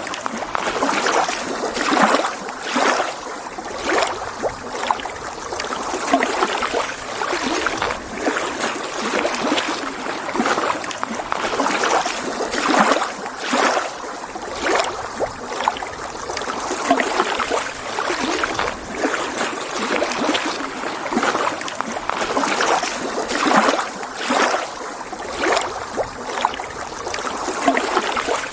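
Small waves lapping against a lake shore, a steady wash of water broken by frequent small splashes every second or so.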